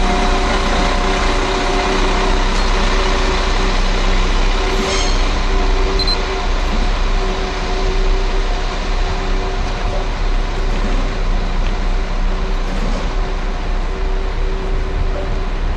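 Chiltern Railways Class 172 Turbostar diesel multiple unit pulling out, its underfloor diesel engines giving a steady multi-tone drone over a low rumble. The sound eases a little as the train moves away.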